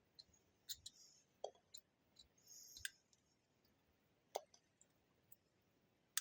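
Faint, scattered small clicks and taps, about ten of them at irregular intervals, from an LED's wire leads and a small circuit board being handled as the LED is pushed into its holes, with a brief soft scrape about a second in and again about halfway through.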